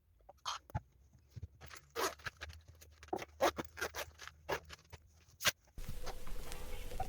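An irregular series of short rustles, taps and clicks from small objects being handled, about a dozen in five seconds. About six seconds in, it cuts to a steady soft hiss of room tone.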